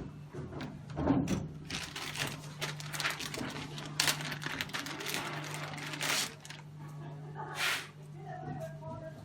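Handling noise from cables and connectors being fitted to the analyzer's rear ports: rustling and scattered clicks, with a few louder scrapes about four, six and seven and a half seconds in. A steady low electrical hum runs underneath.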